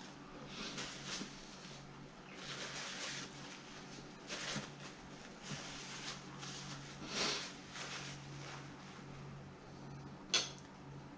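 A paper napkin rustling in soft bursts as it wipes the mouth and hands, over a steady low hum, with one sharp click on the plate about ten seconds in.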